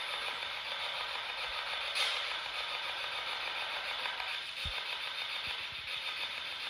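Steady static hiss, with a faint low thump about four and a half seconds in.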